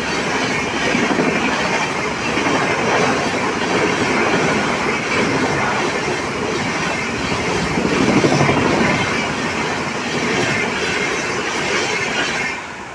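Rajdhani Express passenger train passing close at high speed: a continuous rush of wheels and coaches on the rails with clickety-clack. The sound falls away quickly near the end as the last coach goes by.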